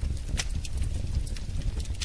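Wood fire crackling in a fireplace: scattered sharp pops and snaps, a louder one about half a second in, over a steady low rumble of the burning fire.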